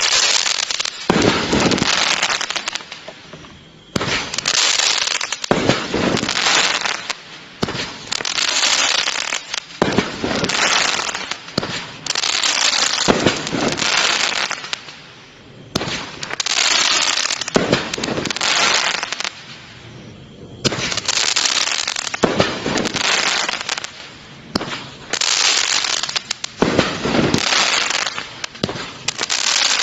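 Raccoon Fireworks 'Tower of Power' 20-shot cake firing shot after shot, about one every one to two seconds. Each launch is followed by a long, dense crackling from the crackle tails.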